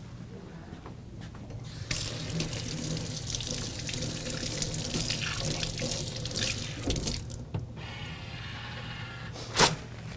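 Water running from a sink tap as hands are rinsed under it, stopping about three-quarters of the way through. Then a brief mechanical whir as an automatic paper-towel dispenser feeds out a towel, and one sharp snap near the end as the towel is torn off.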